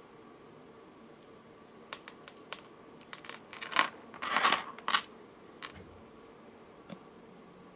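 Beads and needle being handled while stringing a necklace: a scatter of small sharp clicks, with a short crackly rustle about four seconds in.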